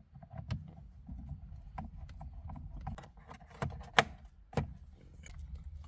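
Irregular sharp clicks and knocks of plastic steering-column parts and hand tools being handled and fitted, the loudest knock about four seconds in.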